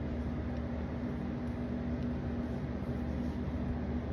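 Steady low mechanical hum with a constant low tone and an even background hiss, like a running motor or air-conditioning unit.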